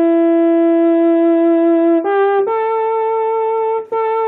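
Soviet EMI Kvintet electronic keyboard playing its brass timbre, a sawtooth tone through a Polivoks-type filter. It holds one note, steps up to two higher notes about two seconds in, and holds the last until a brief break near the end.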